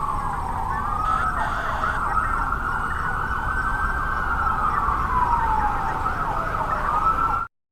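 Emergency-vehicle siren wailing in a slow rise and fall over a faint hum of traffic, then cutting off abruptly near the end.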